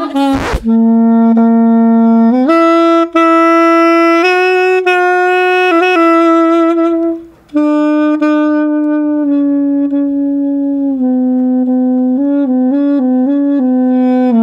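Sax Monica pocket saxophone playing a simple tune of long held notes. The pitch steps up about two seconds in, and there is a short break in the middle. Near the end comes a quick wavering run between two notes.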